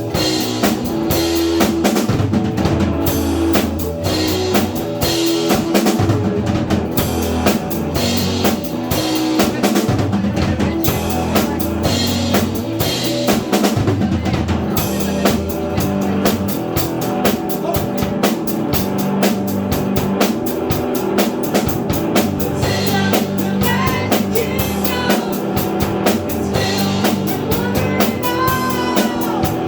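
A band playing a song, led by a drum kit with bass drum and snare keeping a steady, busy beat over bass and other instruments. In the last few seconds a higher melody line with sliding, bending notes rides over the beat.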